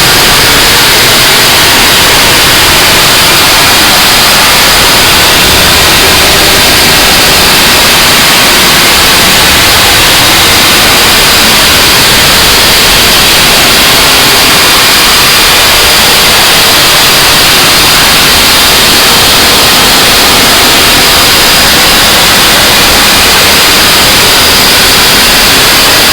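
Harsh noise wall: a dense, unchanging wall of distorted static hiss at full loudness, with no rhythm, pitch or pauses.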